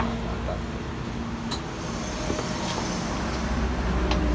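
Steady low rumble of road traffic, with a steady hum that stops about a second and a half in. A couple of light clicks of plastic containers being handled.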